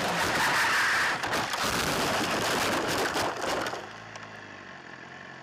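Motorcycle crash on a race track: a loud rushing, scraping noise as the bike and onboard camera go off into the grass, dying down about four seconds in to a quieter low hum.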